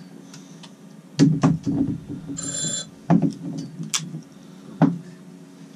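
Several sharp knocks on a fishing boat over a steady low hum, with a short high electronic ring, like a phone's, about halfway through.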